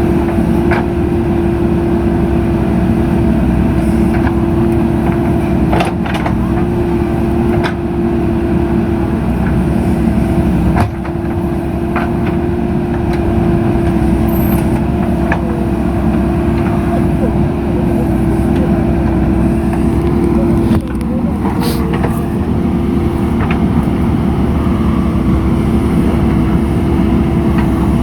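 JCB 3DX backhoe loader's diesel engine running steadily under working load, with a constant whine from the engine and hydraulics and a few scattered knocks and clanks from the bucket and arm.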